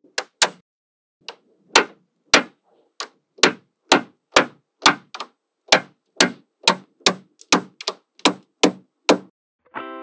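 Small magnetic balls snapping together one at a time: about two dozen sharp clicks, two or three a second, unevenly spaced. Guitar music starts near the end.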